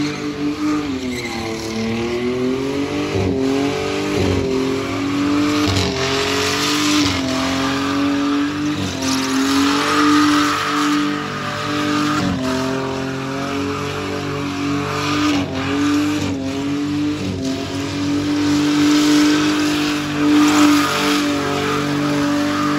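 Ford Falcon sedan doing a burnout: the engine is held at high revs with repeated brief dips and rises in pitch, over the squeal of the spinning rear tyres.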